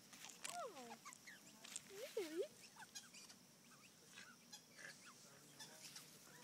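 Australian magpie making soft gliding calls, one falling and a pair swooping up and down about two seconds in, then short high chirps, among small clicks and rustles.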